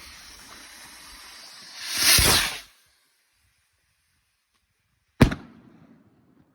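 Firework rocket launching with a loud whoosh about two seconds in, then bursting with a single sharp bang about five seconds in that dies away over about a second.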